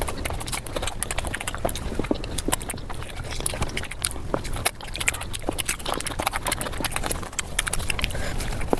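Eating sounds played at five times speed: a person chewing flatbread with curry, the smacks and wet clicks of the mouth running together into a dense, fast clatter.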